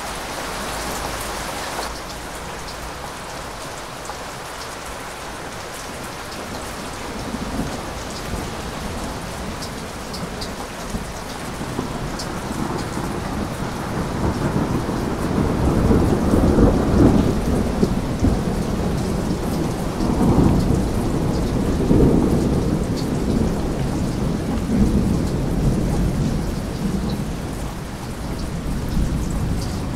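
Steady heavy rain with rolling thunder. The thunder builds from about the middle and rumbles loudest in two swells, then eases near the end.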